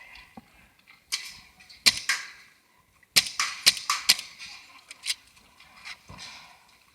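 Paintball markers firing: about nine sharp pops at irregular intervals, some in quick pairs, the loudest clustered in the middle.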